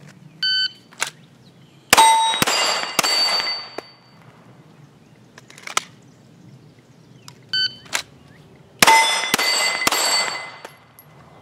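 Two strings of fire. Each opens with a shot timer's short electronic beep, then about a second and a half later three quick shots from a Glock 17 9mm pistol about half a second apart, each followed by the ringing of a struck steel target.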